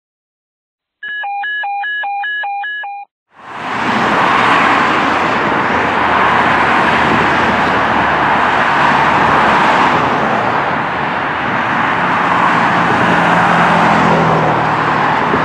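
A short electronic beep pattern, a stepped tone sequence repeated about five times over two seconds, then stops. After a brief gap, a steady hiss of traffic on a busy multi-lane road takes over.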